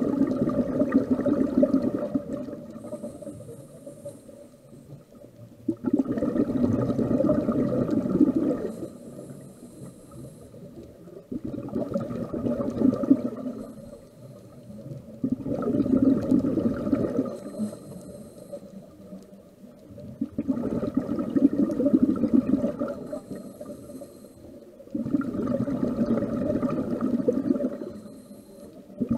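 Scuba diver breathing through a regulator underwater. Exhaled bubbles gurgle out for two to three seconds at a time, and each breath in brings a short hiss from the regulator, about six breaths in all, one every five seconds or so.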